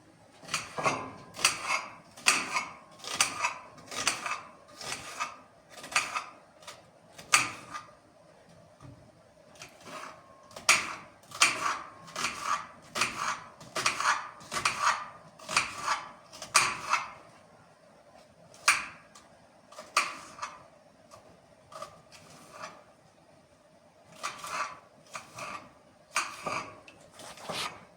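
Irregular clinks and knocks of hard objects being handled, about one or two a second, in runs broken by short pauses.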